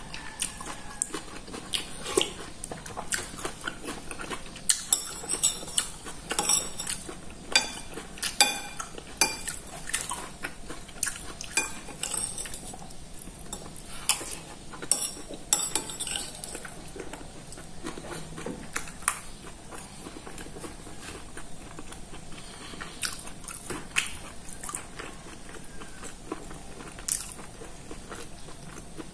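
Eating sounds at close range: a metal spoon clinking against a ceramic soup bowl, with chewing. Sharp clicks come throughout and are densest in the middle.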